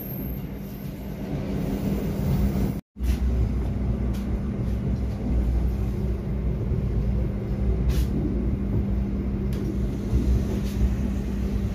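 Steady low rumble and constant hum of a passenger train carriage's interior, broken by a brief dropout about three seconds in, with a few faint clicks.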